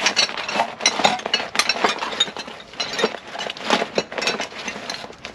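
Repeated irregular metallic clinks and knocks of tools and exhaust parts being handled while fitting a motorcycle exhaust.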